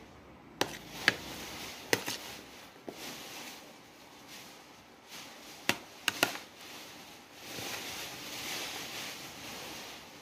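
Several sharp taps and clicks on a plate as chopped tomato and shallot are dropped onto flaked grilled fish, followed near the end by a few seconds of soft rustling.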